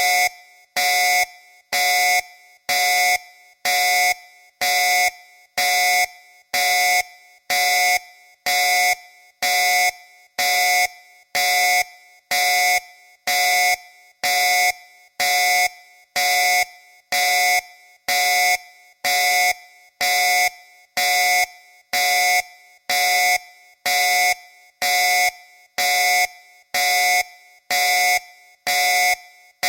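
Battle alarm sounding: a loud pitched tone repeated about once a second, each blast starting sharply, lasting about half a second and falling away quickly.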